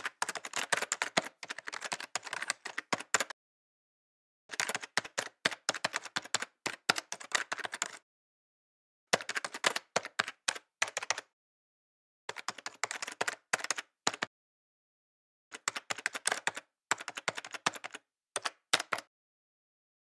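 Rapid keystroke typing clicks in about five runs of two to four seconds each, with short silent gaps between them, matching text being typed out line by line.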